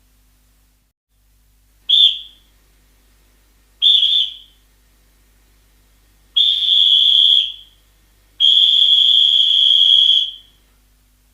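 Referee's whistle blown four times: two short blasts, then a longer blast of about a second and a final long blast of nearly two seconds, each a steady shrill tone.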